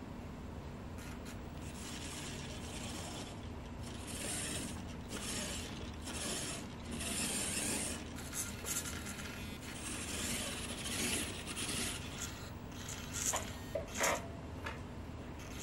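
Small RC car's electric motor and 3D-printed plastic gear drive whirring in a series of short runs as the car drives on a wooden tabletop, with a few sharp clicks near the end.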